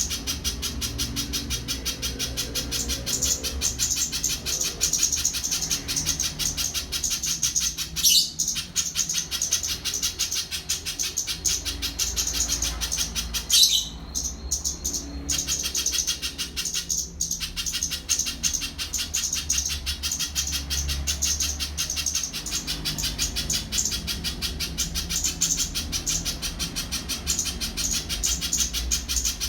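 Spiderhunter (pijantung) singing a long, fast run of high, rapidly repeated notes, with a few brief pauses.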